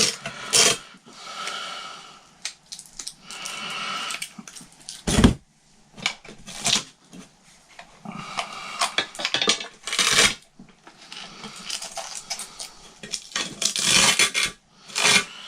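Hook-and-loop Velcro strips being peeled off the bottoms of guitar effects pedals: several drawn-out tearing sounds, with knocks from the pedals being handled and set down, the sharpest about five seconds in.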